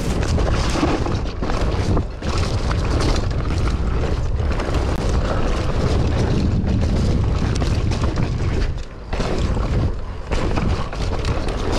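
Wind buffeting a helmet or handlebar action camera and the rumble of a mountain bike rolling fast down a forest dirt trail, dropping away briefly about nine seconds in.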